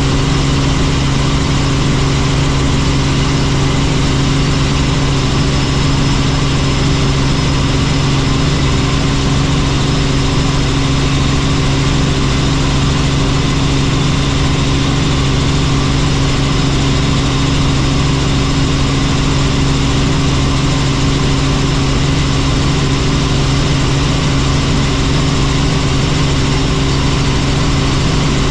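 Helicopter engine and rotor noise: a steady, even drone with a constant low hum.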